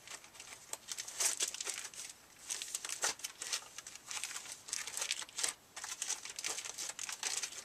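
Plastic wrapping crinkling and rustling in irregular bursts as comic books are handled and sorted.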